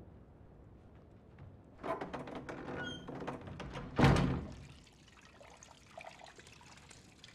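Bathwater splashing and pouring with small knocks and clatter, then a single heavy thunk about four seconds in that dies away quickly.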